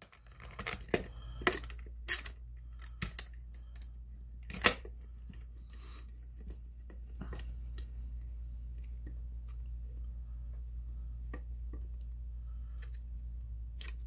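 A padlock in its plastic blister pack being handled and clamped into a metal lockpicking vise: rustling plastic with sharp clicks and knocks of metal on metal. The knocks come thickest in the first few seconds, the loudest a single knock about four and a half seconds in, and they go on fainter after that, over a steady low hum.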